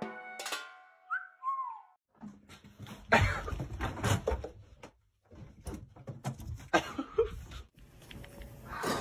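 A music sting ends, then a pet animal gives a brief call that rises and falls, followed by a run of knocks, thumps and rustling with another short animal sound near the end.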